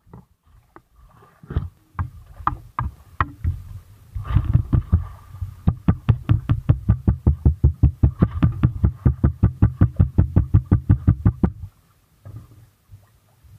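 Knife chopping a squid on a wet wooden board: a few scattered knocks, then rapid, even chops about seven a second for about six seconds, each landing with a dull thud, before stopping suddenly.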